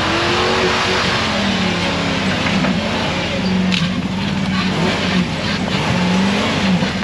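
Off-road vehicle engine revving hard at high throttle, its pitch repeatedly rising and dipping as it climbs, over a loud rushing hiss.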